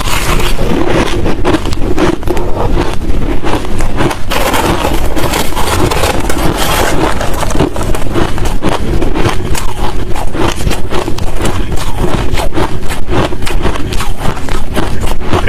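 Hard crushed and shaved ice being chewed close to the microphone: loud, dense, continuous crunching without a break.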